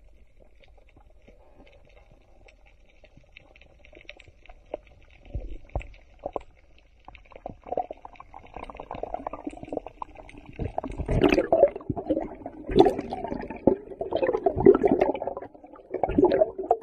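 Underwater sound picked up by a camera in its housing: faint crackling at first, then from about eight seconds in, irregular muffled gurgling surges and knocks of water moving against the housing as the diver swims up with the speared fish.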